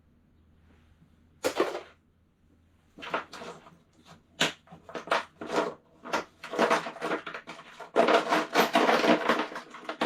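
Metal sockets clinking and clattering as they are picked through and sorted: one sharp clatter about a second and a half in, then a run of short clinks, busiest near the end.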